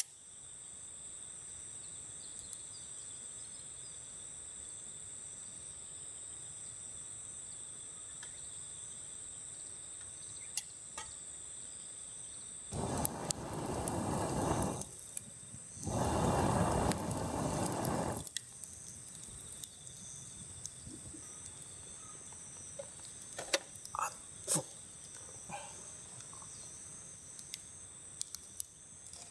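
Insects singing in a steady, high-pitched drone. About halfway through, two loud rushing noises of about two seconds each break over it, and a few light clicks follow near the end.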